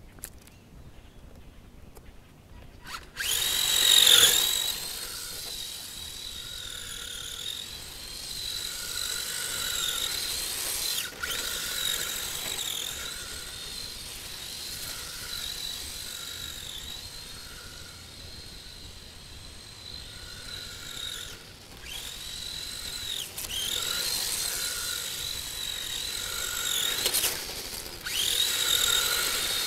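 HPI E10 1/10-scale electric RC drift car's motor and drivetrain whining high-pitched, the pitch rising and falling again and again as the throttle is worked. It starts about three seconds in, loudest just after it starts.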